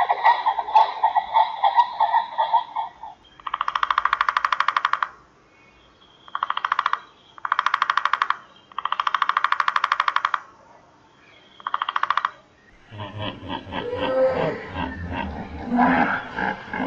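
A pheasant calling in quick pulses for the first few seconds. Then a woodpecker drumming on wood in five fast, even rolls with short silences between them, the first roll the longest. Near the end a hippopotamus calls with low, rough sounds.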